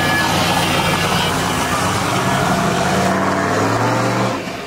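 Pickup truck engine idling with a deep, steady exhaust note, rising in pitch in a short rev near the end before cutting off abruptly.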